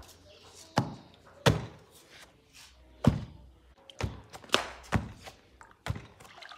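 Long wooden pestle pounding fufu dough in a clay mortar: about eight heavy, unevenly spaced thuds.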